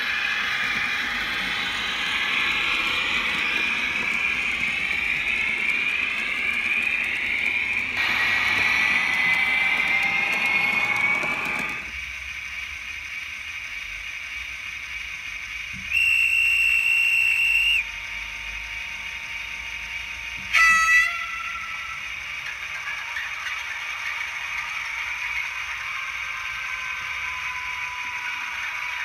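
Sound decoder of a model BR 231 diesel locomotive playing its diesel engine sound through the model's small speaker. The engine sound runs loud while the locomotive moves, then settles to a quieter idle about 12 seconds in. A steady horn blast of about two seconds comes about 16 seconds in, and a short horn toot that falls in pitch near 21 seconds.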